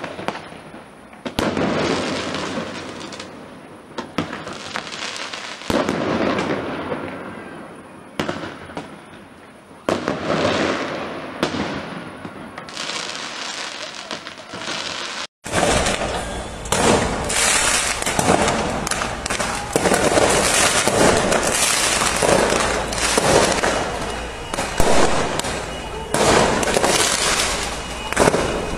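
Fireworks fired along a street: a series of launches and bangs, each trailing off over a couple of seconds. About halfway through the sound cuts abruptly to a dense, nonstop barrage of firework bangs and crackling.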